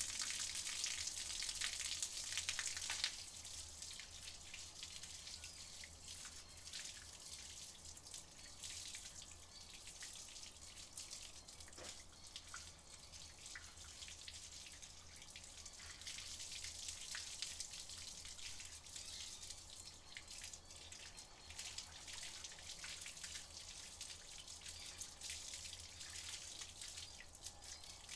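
Water from a garden hose spraying and splashing onto a dog and wet concrete, loudest for the first three seconds, then a softer, uneven patter and dripping.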